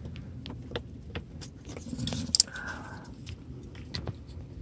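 Small clicks and rattles of hard plastic bonnet-latch parts being handled and pushed into place by hand, with one sharper click about two and a half seconds in.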